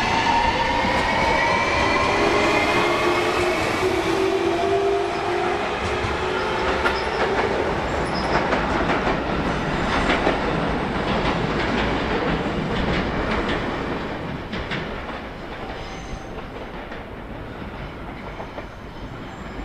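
JR Shikoku 7200-series and 7000-series electric local train pulling out and accelerating past, its motors whining upward in pitch. Then the wheels clack over the rail joints as it draws away, growing fainter in the last few seconds.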